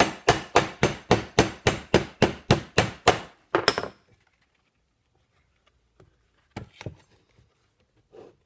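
Ball-peen hammer rapidly peening a copper rivet through a steel strip over an anvil horn, about four sharp blows a second, setting the rivet tight. The hammering stops a little after three seconds in, followed by a few faint knocks.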